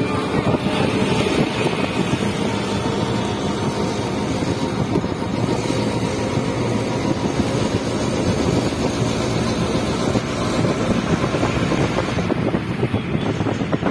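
Steady running and road noise heard from inside a moving open-sided rickshaw, mixed with wind buffeting the microphone.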